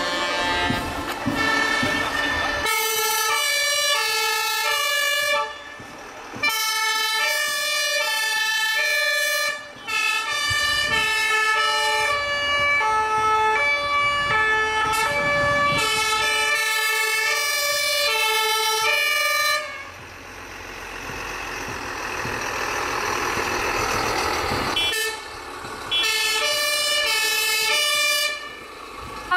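Fire engines sounding two-tone Martinshorn sirens, the high and low notes alternating, several horns overlapping out of step as the vehicles pass one after another. The horns break off briefly a few times, and for several seconds past the middle only engine and road noise is heard.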